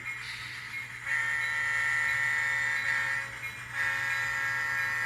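Sound-decoder horn of an N scale Atlas SD60 model locomotive, played through its small onboard speaker: two long steady blasts of a multi-tone chord with a brief break between them.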